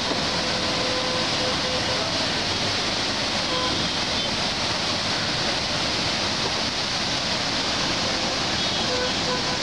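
Lake overflow water rushing through a stone-walled channel and spilling over a stepped drop: a steady, even rush of water.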